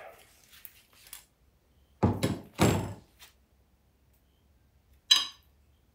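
Transmission clutch plates, steels and frictions from an automatic transmission's low reverse clutch pack, being handled and set down on a wooden bench. Two dull clunks come about two seconds in, and a short metallic clink rings briefly near the end.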